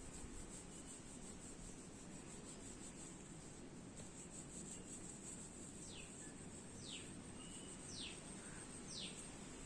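Faint rubbing of hands over hair and scalp during a head massage. In the second half a bird gives a short falling whistle about once a second, five times.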